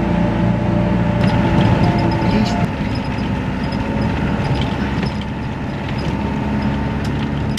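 Vehicle in motion heard from inside the cabin: a steady low rumble of engine and road noise, a little quieter after about three seconds.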